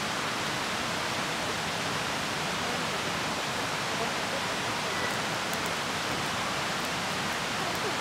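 Steady, even rushing noise that does not change, with a few faint high ticks about five seconds in.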